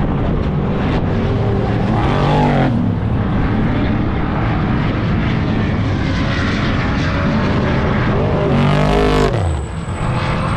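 Loud engines of event vehicles running hard, with a rev that rises and falls about two seconds in and a higher rev near the end that drops away quickly.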